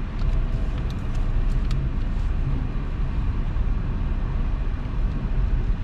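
Steady low rumble of a Volkswagen Passat's engine and tyres, heard from inside the cabin as the car is driven slowly and steered through a tight parking manoeuvre.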